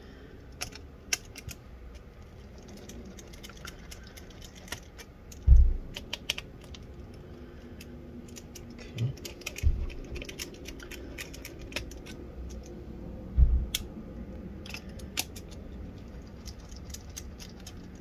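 Small clicks and ticks of a precision screwdriver backing the fan screws out of an Acer Nitro 5 laptop, with screws and tools tapping on the plastic and metal of the open chassis. Three dull low thumps a few seconds apart are the loudest sounds.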